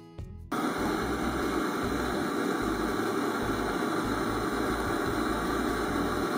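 Campingaz gas blowtorch burning with a steady hiss as it heats an aluminium moped crankcase half. It starts abruptly about half a second in and holds unchanged.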